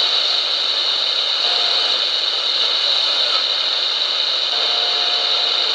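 Shortwave receiver static through a small loudspeaker, from a portable radio modified to tune up to 29 MHz: a steady, loud hiss with no station coming through. A faint steady whistle comes and goes a few times under the hiss.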